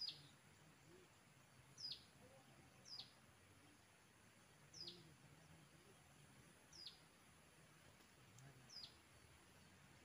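A small songbird calling: a short, sharp, high note that slides downward, repeated six times at intervals of one to two seconds.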